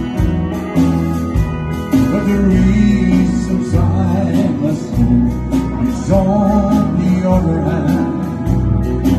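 Live country band playing, with drums, acoustic and electric guitars and pedal steel guitar over a steady beat.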